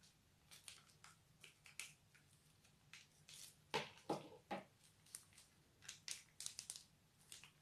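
Plastic piping bag crinkling and crackling as a hand squeezes it and presses its tip into slime. The crackles are faint and irregular, with a louder cluster about four seconds in.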